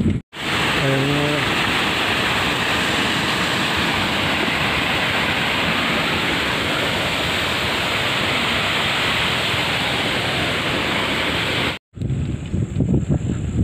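Steady, even rush of flowing water from a stream. It starts and stops abruptly at edits just after the start and near the end.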